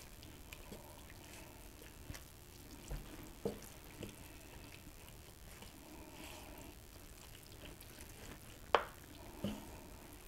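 Wooden spoon stirring a thick, wet cornbread dressing mixture in a large bowl, soft squishing as the cream of chicken soup is worked in. A few sharp knocks stand out, the loudest near the end.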